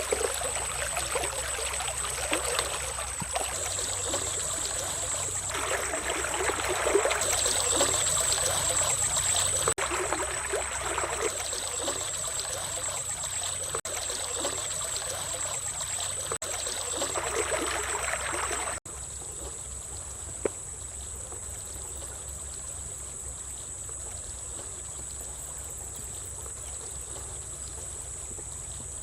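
Stream water trickling and burbling, with a steady high-pitched whine over it. About two-thirds of the way through it cuts suddenly to a quieter, steadier wash of water, the high whine carrying on.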